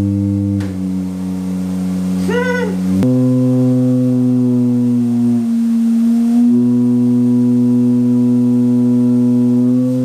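Background music of sustained held chords. The chord changes about a second in and again at three seconds, with a short rising-and-falling glide near two and a half seconds.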